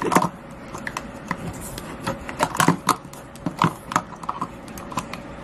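Irregular clicks and taps of small plastic makeup containers and compacts being handled and packed away, a few louder knocks among them.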